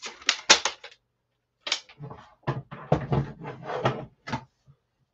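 Irregular short clicks and knocks: a cluster in the first second, then a longer scattered run from about two seconds in until past four seconds.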